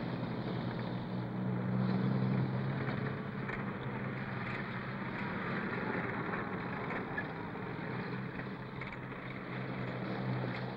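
Tank engine running steadily: a low hum with a noisy rush over it, as the tank moves up.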